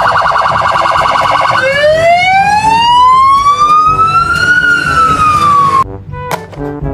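Police siren: a fast warbling yelp at first, then a wail that rises slowly in pitch and falls again, cutting off abruptly near the end.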